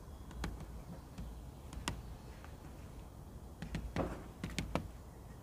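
Great spotted woodpecker pecking peanuts through a wire-mesh feeder: sharp, irregular taps, a few widely spaced at first and a quick cluster of louder ones about four seconds in, over a low steady rumble.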